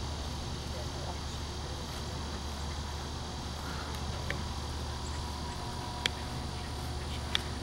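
Steady outdoor background noise: a low hum under a faint high hiss, with a few short clicks near the end.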